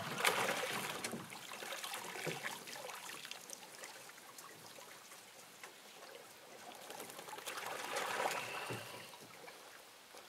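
Water splashing and then trickling and dripping as a wet dog is pulled over the side into a small skiff. The water noise fades, then swells again about eight seconds in.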